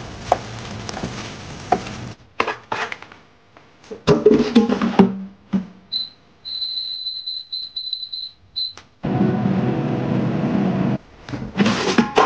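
Kitchen food-prep sounds: hands tossing potato slices in a bowl, with knocks and clatter. About six seconds in comes a run of high electronic beeps from a Modong air fryer's touch panel as its settings are tapped in. Then there is a couple of seconds of steady whirring that stops abruptly, and the fryer basket clatters as it is pulled out near the end.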